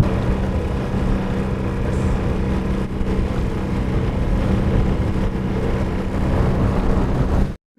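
Motorboat engine running at a steady speed with the boat under way, over rushing water and wind. It cuts off abruptly near the end.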